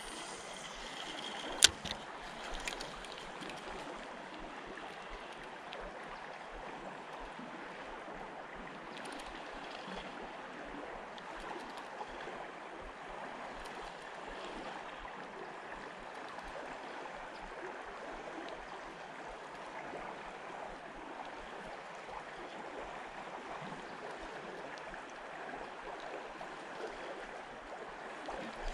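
Creek water flowing steadily, an even rushing hiss. A single sharp click about two seconds in.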